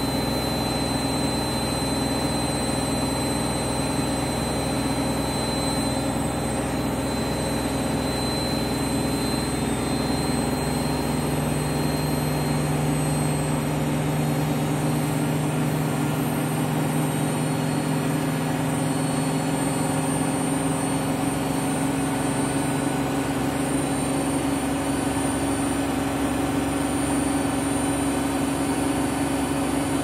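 Candy front-loading washing machine in a high-speed spin, set to 1600 rpm: a steady hum and whine from the motor and spinning drum. The pitch of the hum shifts slightly about a third of the way in.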